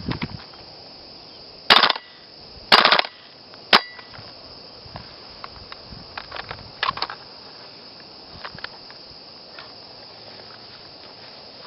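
WE G39C gas blowback airsoft rifle, a G36C replica: two short, loud bursts about a second apart, then a single sharp metallic clack about a second later. After that come scattered light clicks and knocks of the rifle being handled.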